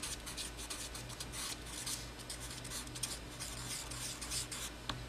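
Sharpie felt-tip marker scratching on paper in quick clusters of short strokes as words are written out, over a faint steady low hum.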